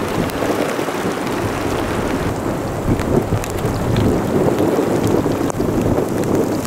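Heavy rain and strong wind from a tornado's rear-flank downdraft make a steady rushing noise, with scattered sharp ticks of raindrops hitting the camera.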